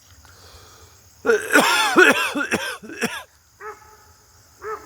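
Dogs barking: a quick run of overlapping barks for about two seconds, then two single barks near the end.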